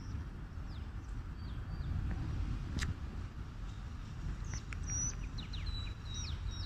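Small birds chirping: scattered short, high calls and quick slurs, growing busier in the last two seconds, over a low steady rumble.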